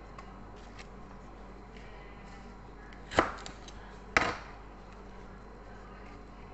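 Two sharp knocks about a second apart as baby kai-lan (Chinese broccoli) is handled and sorted on a kitchen counter, over a low steady hum.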